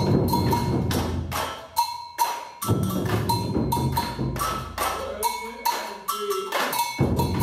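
Group drumming on large barrel drums, with a sharp, ringing high strike repeating every half second or so over the deep drum beats. The deep drums drop out briefly about five seconds in and come back near the end.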